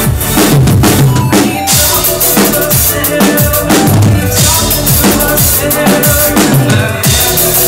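Electronic music played live, with a steady heavy beat of deep kick drums and sharp snare hits under sustained synth tones.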